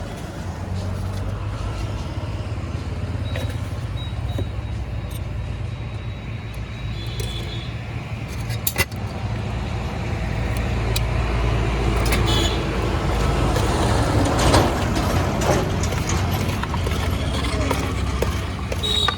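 Road traffic: motor vehicles running close by with a steady low rumble, one passing loudest about three-quarters of the way through, with a few sharp clicks.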